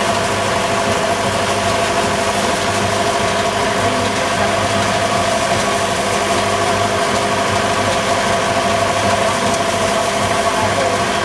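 Fordson Major tractor engine running steadily, driving an Ajuria threshing machine as sheaves are fed in. Its drum and moving parts add a steady mechanical whir.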